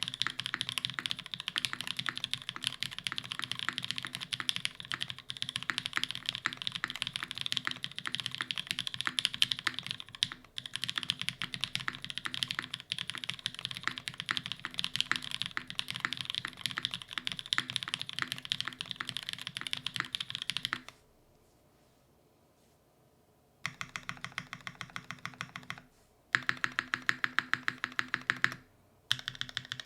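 Iron165 R2 custom mechanical keyboard being typed on quickly: lubed linear switches (Cherry MX Black housings with Kailh black stems) on an aluminium plate under GMK keycaps, giving a fast, steady stream of keystroke clacks. About two-thirds of the way in the typing stops for a couple of seconds. It then returns as short bursts of rapid, evenly spaced keystrokes.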